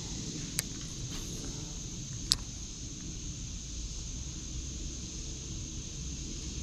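Steady high-pitched insect chorus over a low rumble, with two sharp clicks: a faint one about half a second in and a louder one about two seconds in.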